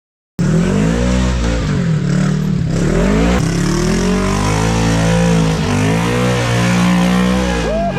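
A motor vehicle's engine running and revving, its pitch rising and falling, cutting in suddenly about half a second in.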